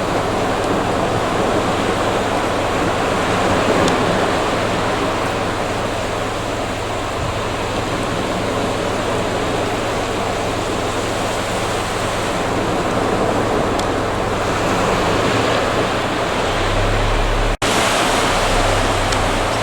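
Sea surf washing on the beach: a steady rush of waves that swells and eases, with a momentary break in the sound near the end.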